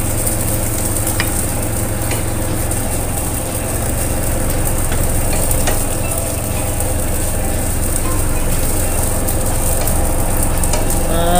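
Milk-based fish curry simmering in a steel wok, a steady bubbling sizzle under a constant low hum. A few light clicks of chopsticks against the pan.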